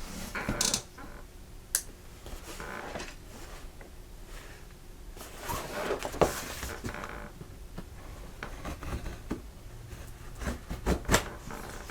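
A knife slitting the packing tape and cardboard of a mailing box, with scraping and rustling of the box being handled and a few sharp clicks and knocks.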